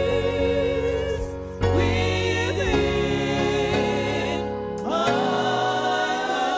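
A group of women singing together into microphones over an instrumental backing, holding long notes with a slight waver. New sung phrases begin about a second and a half in and again about five seconds in.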